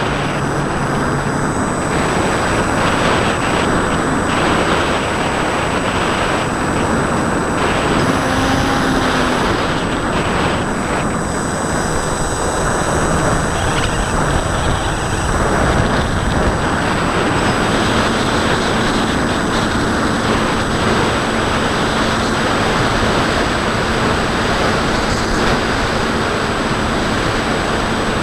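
Onboard audio of a Bixler 2 electric foam model plane in flight: steady wind rush over the camera mounted on the airframe, with the hum of its brushless outrunner motor and 8x5 propeller. A faint low steady tone holds from about two-thirds of the way through.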